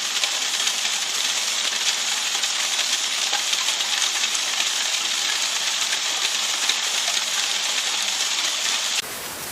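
Heavy rain pouring down in a steady, dense hiss. It cuts off abruptly near the end, leaving a quieter hiss.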